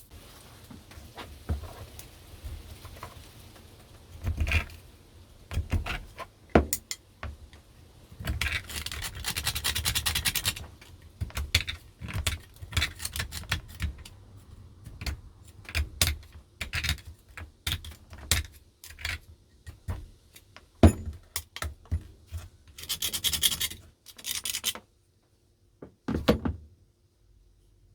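Metal parts of a rusty small bench vise knocking and clinking as it is dismantled by hand, with two longer bouts of harsh scraping.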